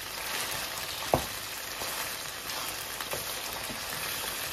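Chicken pieces sizzling in hot oil in a karahi as a wooden spatula stirs them. A sharp knock of the spatula against the pan comes about a second in, with lighter knocks later.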